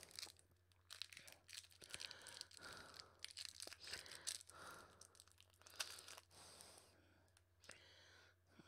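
Faint, irregular crinkling and tearing of a plastic candy wrapper being opened, the wrapper of an Atomic Fireball hard candy, thinning out near the end.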